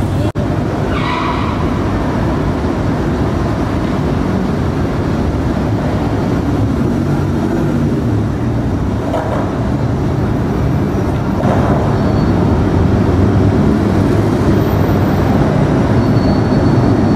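Steady low rumble of city street noise and traffic.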